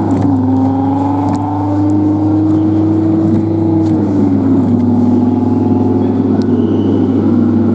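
Jolly Roger Spydero coin-operated kiddie ride running through its ride cycle: a steady electric motor hum with a whine that drifts in pitch, dropping about halfway through and wavering near the end.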